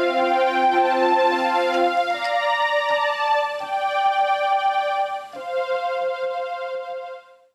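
Portable electronic keyboard playing a slow melody over held chords. For the first two seconds a lower accompaniment pulses underneath. The music cuts off abruptly near the end.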